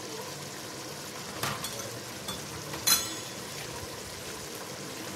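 Thick mash dal (urad lentils) simmering in an open aluminium pressure cooker over a gas flame, bubbling steadily, with a few sharp pops as bubbles burst, the loudest about three seconds in.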